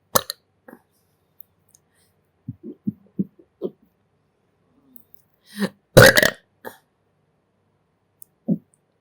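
A person belching several times: a sharp one at the start, a run of short, low ones around three seconds in, the loudest and longest one about six seconds in, and another short one near the end.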